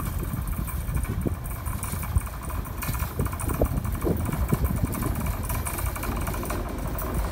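Hector Rail DE2700 diesel-electric locomotive running light as it approaches, its diesel engine giving a steady low rumble with occasional thumps.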